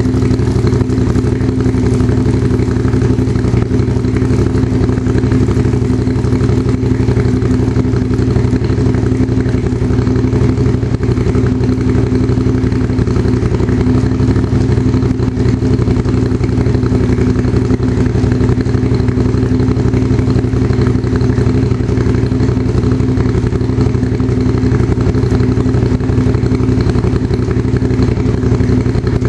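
Motorcycle engine idling steadily in first gear, turning the rear wheel and drive chain.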